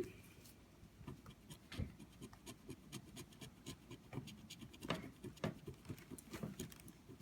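Lottery scratch-off ticket being scratched, the silver coating scraped off in faint, irregular short strokes.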